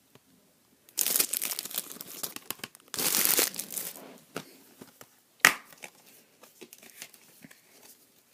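Blu-ray packaging being handled: plastic and paper crinkling and rustling in two loud bursts, then a single sharp click about five and a half seconds in, followed by faint rustles.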